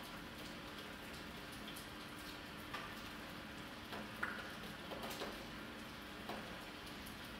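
Faint background ambience: a steady hiss and a low hum, with scattered light ticks at irregular intervals.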